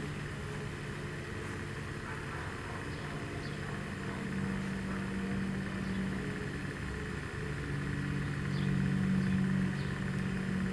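Thunderbolt siren's rotator running at its slow 2 RPM setting, a steady mechanical hum with low tones that swells twice, once about four seconds in and again near the end.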